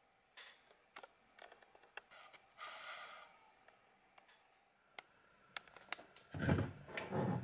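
Handling noise: scattered light clicks and a short rustle, then heavier low rubbing thumps near the end as the camera is moved about the desk.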